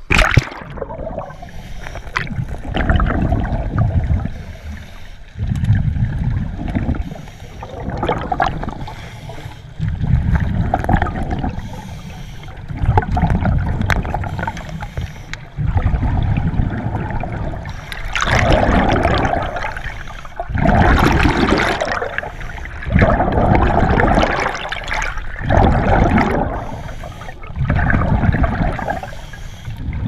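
Scuba diver breathing through a regulator underwater: a hiss on each inhale and a gurgle of exhaust bubbles on each exhale, repeating about every two and a half seconds, after a splash right at the start as the camera goes under.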